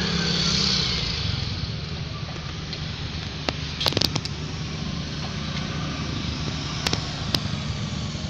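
A vehicle engine idling with a steady low hum, with a hiss in the first second and a few sharp clicks and taps, a quick cluster of them about four seconds in.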